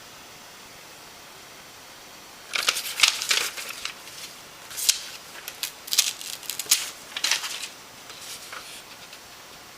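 A run of short rustles and clicks, like something being handled close to the microphone, starting about two and a half seconds in and dying away after about five seconds, over a steady low hiss.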